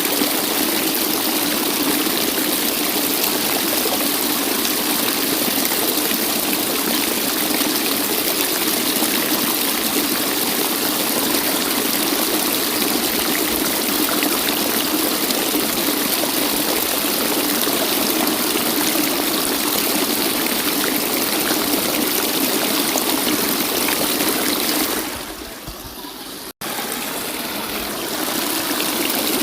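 Waterfall, water rushing and splashing steadily. Near the end it turns quieter for about two seconds and cuts out for an instant before coming back at full strength.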